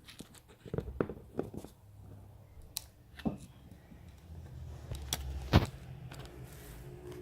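Scattered sharp clicks and taps from handling an opened iPhone and small repair tools, the loudest about five and a half seconds in.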